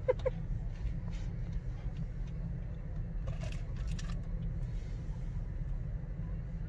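Steady low engine and road rumble heard inside a car's cabin as it creeps along in slow traffic, with a few light clicks and rattles just after the start and again around the middle.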